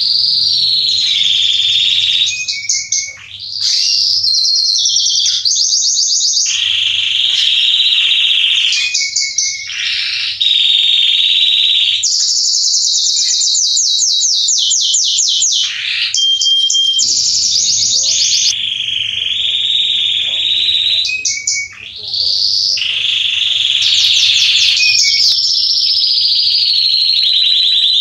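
Male Belgian canary singing long phrases of fast, high trills and rolls, broken by a few brief pauses.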